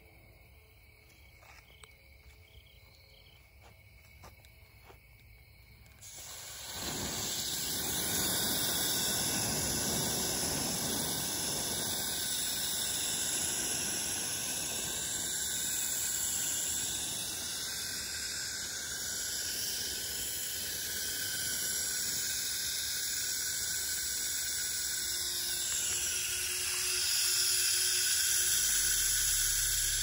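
Faint crickets chirping, then about six seconds in a garden hose spray nozzle starts dousing the fire pit's hot coals: water spattering onto the embers and steam hissing, steady and loud to the end.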